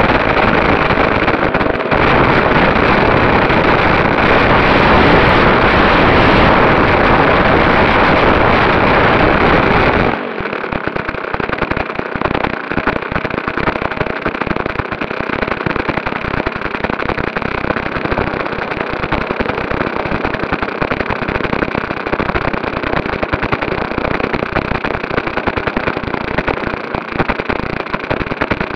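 Top Flite P-51 Mustang radio-control model's engine running on the ground at high throttle as a loud, even rush, then throttled back about ten seconds in to a crackling, popping idle.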